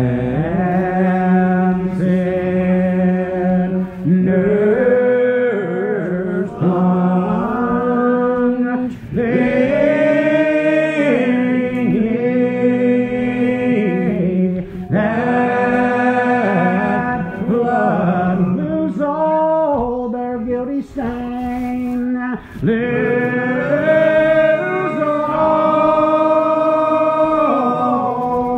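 Unaccompanied congregational hymn singing by men's and women's voices together, in slow, long drawn-out notes that bend in pitch with short breaths between phrases, in the a cappella style of the Old Regular Baptists.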